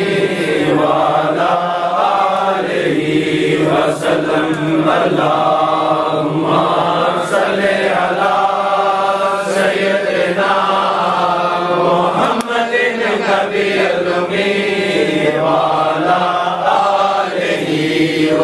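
A group of men chanting dhikr (zikr) together, many voices in unison, continuous and unbroken.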